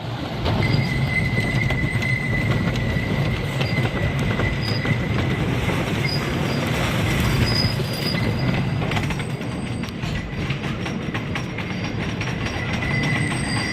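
Roller coaster train running along its track: a steady rumble with a high, thin wheel squeal and rapid clattering.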